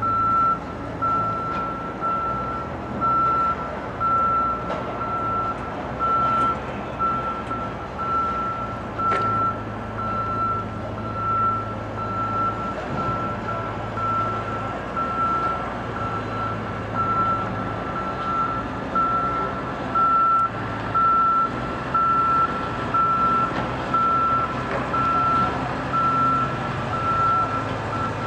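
Construction machinery's back-up alarm beeping steadily, about once a second, over a low engine hum.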